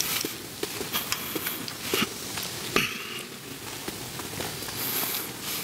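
Footsteps of several people walking on a hard tiled floor: irregular shoe clicks and taps with light rustling between them.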